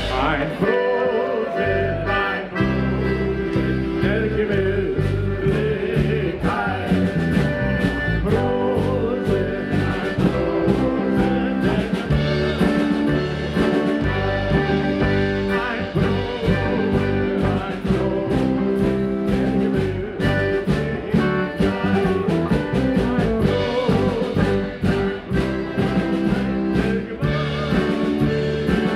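Live polka band playing: piano accordion leading over electric keyboard, electric guitar and drum kit on a steady beat, with a man singing.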